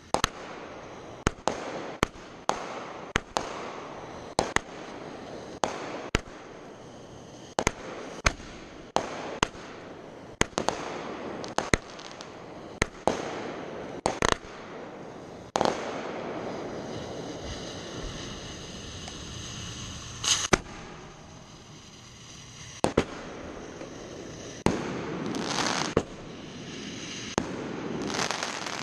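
Aerial fireworks display: a rapid series of sharp bangs, about one to two a second, with a hissing, rushing noise between them. Midway the bangs thin out into a steadier stretch of noise before more loud bangs near the end.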